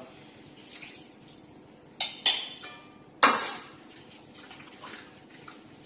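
A thickening slurry poured from a small bowl into a hot wok of sauce, with short bursts of sizzling about two and three seconds in, the second the loudest, and light clinks of a metal ladle against the wok.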